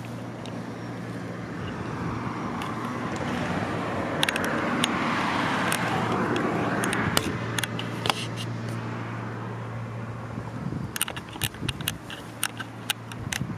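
A car passes by: its engine and tyre noise swells over a few seconds and fades away, over a steady low hum. A run of sharp clicks and taps follows near the end.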